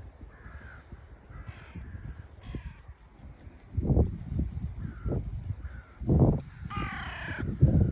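Crows cawing: a few short, fainter caws in the first three seconds, then a loud, harsh caw near the end. Low thuds come and go underneath, the loudest things in the mix.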